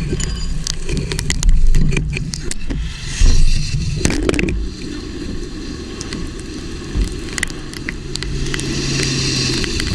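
Knocks and scrapes from the tornado probe's camera housing being handled and set down on the road, over a steady low rumble of wind on its microphone. In the second half the chase vehicle's engine runs close by as the car pulls away from the probe.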